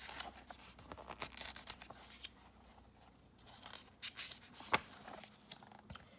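Quiet paper rustling and handling as the pages of a book are turned, with several light clicks and one sharp tap about three-quarters of the way through.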